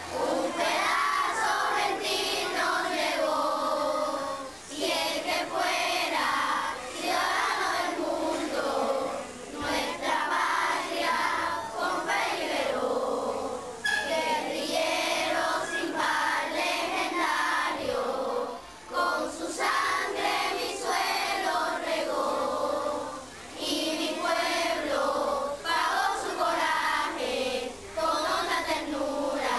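A group of children singing a song together, in phrases of a few seconds with short breaks between them.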